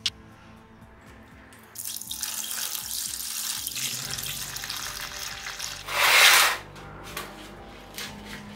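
Liquid poured from a plastic jug into a plastic tub of rusty metal lamp parts: a steady splashing hiss that starts about two seconds in, with a brief, much louder rush about six seconds in. A sharp click at the very start and a few small clicks near the end.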